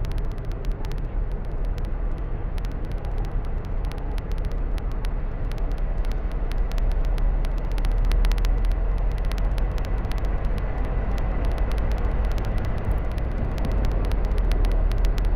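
Car driving along a paved road: steady road and wind noise with a heavy low rumble and scattered small ticks, growing a little louder about halfway through.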